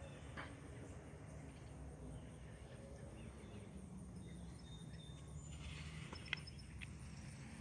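Quiet outdoor ambience: a steady low rumble with a few faint, brief bird chirps. Near the end come a couple of sharp clicks.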